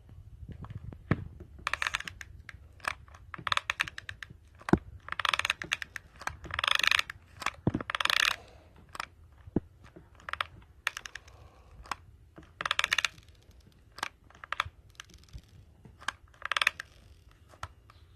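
Irregular clicks, taps and short scraping rustles of hard plastic parts being handled and pressed together while a cover is glued onto a Peltier cooler unit.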